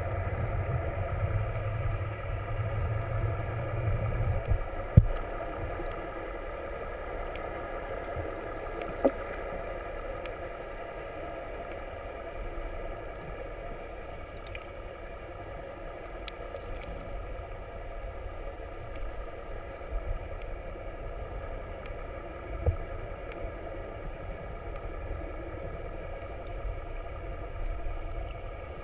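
Steady hum of a boat's engine heard underwater. A deeper rumble fades out about five seconds in, and there are a few sharp knocks.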